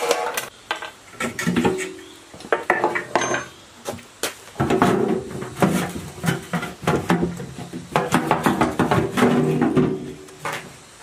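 Metal clinking and clanking from hand tools and parts as a petrol generator is taken apart, in uneven clusters of sharp knocks, some ringing briefly.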